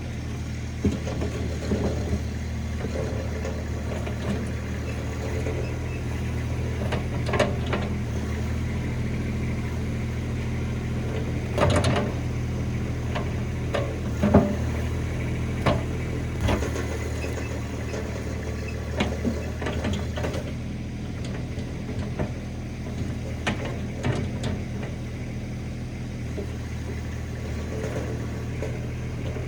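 RIPPA RS06 mini skid steer engine running steadily while the machine works the ground, with scattered knocks and clanks along the way.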